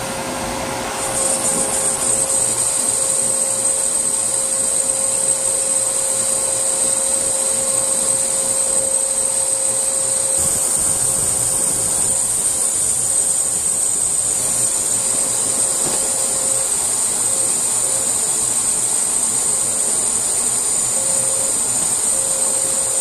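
Bosch brake lathe spinning a brake rotor while its cutting bits resurface both faces: a steady hum with a steady high-pitched hiss that comes in, louder, about a second in.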